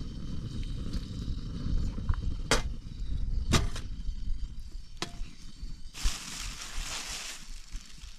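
Wind rumbling on the microphone, with a few sharp clicks of utensils against metal dishes, then a plastic bag rustling for about a second and a half near the end.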